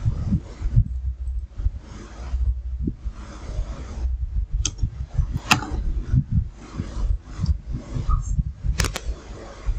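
Low, steady rumble of background noise on a desk microphone, with a few sharp clicks from a computer mouse and keyboard, the loudest near the end.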